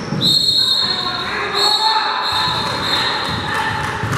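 Basketball game in a gym: a ball bouncing on the floor among other knocks, with a high steady tone held for about three seconds with a short break in the middle.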